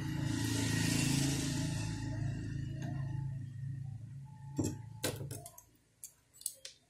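Bench sounds during soldering work on an induction cooktop circuit board. A steady low hum runs under a soft hiss early on, and the hum stops about five and a half seconds in. Several sharp clicks and taps come near the end.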